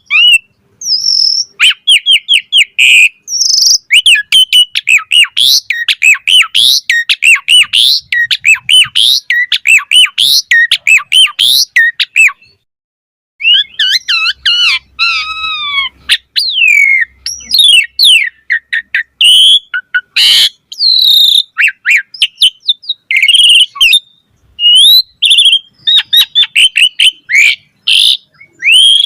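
Asian pied starling (jalak suren) singing a long, varied song of rapid whistles, chirps and harsher notes. There is a brief break a little under halfway through.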